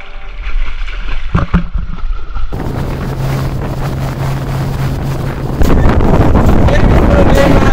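Tour boat's motor running as a steady low drone under wind rushing over the microphone. A few seconds in the drone drops out and louder wind buffeting on the microphone takes over.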